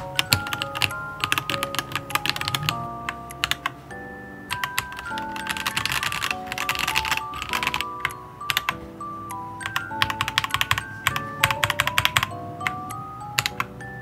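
Typing on a Dareu Z82 mechanical keyboard with Dareu Blue Sky V2 linear switches: quick runs of keystroke clacks in bursts with short pauses. Light background music with chime-like notes plays underneath.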